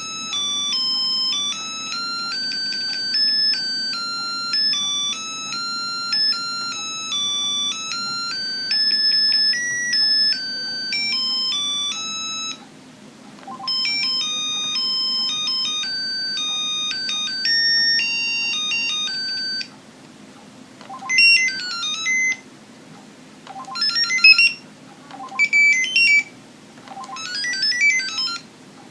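Mitsubishi Trium Astral mobile phone playing its built-in ringtones one after another. First comes a beeping single-note melody; after a short break a second tune plays. From about two-thirds of the way in there are short bursts of fast rising and falling warbles with pauses between.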